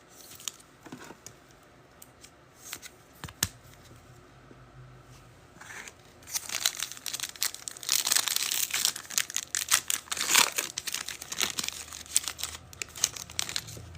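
A foil trading-card pack wrapper being torn open and crinkled. A few light clicks and taps come first, then about six seconds in a dense crackling of the wrapper sets in and keeps on.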